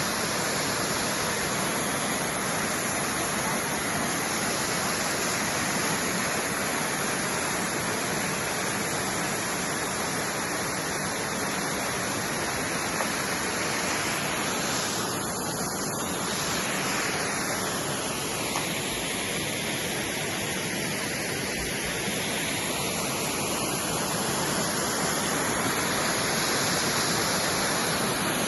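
A waterfall heard from almost directly beneath it: a steady, dense rush of falling water.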